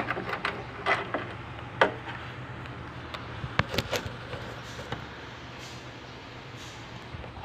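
Scattered light clicks and knocks of small parts and tools being handled during a microwave oven repair, over a steady low hum.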